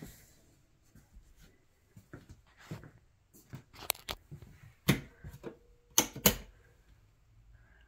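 Footsteps and knocks on laminate flooring, irregular short clicks, the loudest a knock about five seconds in and a pair about six seconds in.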